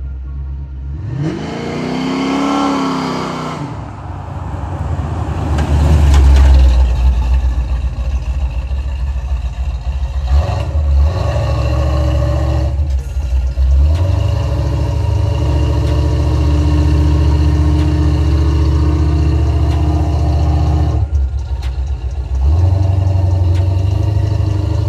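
LS1 V8-powered car revving once, the pitch rising and falling, then driving by with a heavy, mostly steady exhaust rumble that dips briefly a few times.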